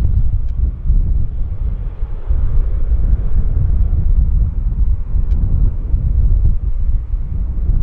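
Wind buffeting the microphone in a low, gusty rumble, with the noise of a jet airliner faintly beneath it.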